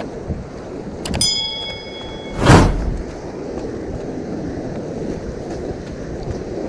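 Surf washing over rocks with wind buffeting the microphone. About a second in there is a click and a short bell chime, the sound effect of a subscribe-button overlay. About two and a half seconds in comes a sudden loud rush of noise.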